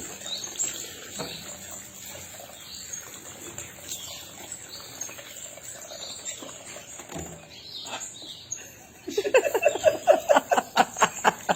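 Parrot giving soft chirps and twitters over a steady high hiss. About nine seconds in, a loud run of quick repeated voice-like calls starts, about four or five a second.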